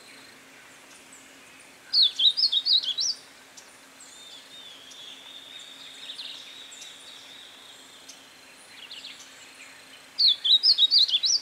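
Negrinho-do-mato singing: two short, quick warbled song phrases of rapidly rising and falling notes, one about two seconds in and one near the end, with fainter bird notes between.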